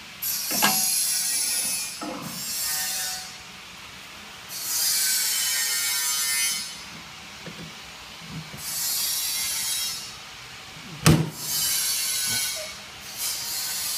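Steel mold plates of a blister packing machine sliding and scraping across a wooden board, in repeated hissing stretches of a second or two, with knocks as the metal is bumped or set down; the sharpest knock comes about eleven seconds in.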